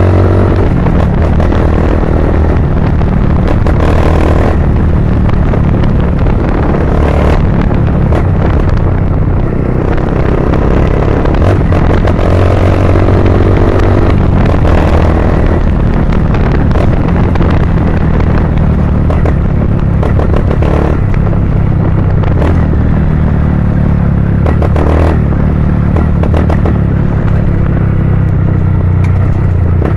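Honda CG 160 Cargo's single-cylinder four-stroke engine running through a Pro Tork Competition aftermarket exhaust, giving a steady, loud, low rumble that wavers a little in pitch now and then.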